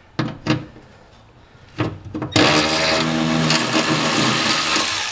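Milwaukee M12 3/8-inch cordless ratchet: a few light clicks of tool handling, then about two and a half seconds in its motor runs steadily for nearly three seconds, spinning out a bolt holding the car's undertray.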